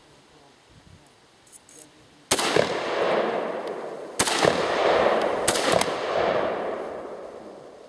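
Radom Sport Beryl semi-automatic rifle fired four times: two single shots about two seconds apart, then two in quick succession. Each shot leaves a long echo rolling away.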